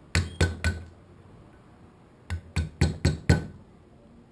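Carving mallet striking a gouge as it cuts into wood: three quick sharp knocks, then after a pause of about a second and a half, five more, each with a short clinking ring.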